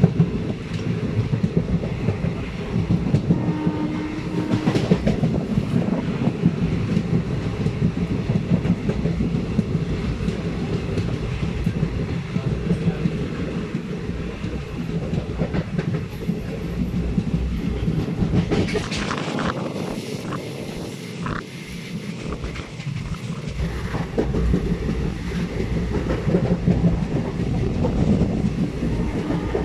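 Indian Railways passenger train running at speed, heard from inside a coach: a steady rumble with wheels clattering over the rail joints. The low rumble drops away for a few seconds past the middle, then returns.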